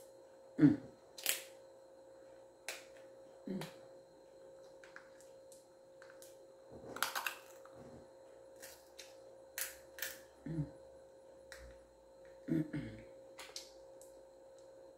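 Crab leg shells being cracked and picked apart by hand: a dozen or more irregular sharp clicks and snaps, with a faint steady hum underneath.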